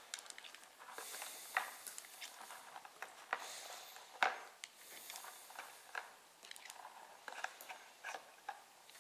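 Handling noise as a revolver is lifted out of a foam-lined hard case and turned in the hand: rustling with scattered small clicks, the sharpest one a little after four seconds.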